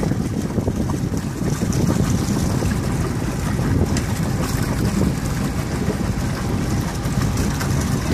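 Steady low rumble of wind buffeting the microphone, mixed with water rushing past a motorboat under way.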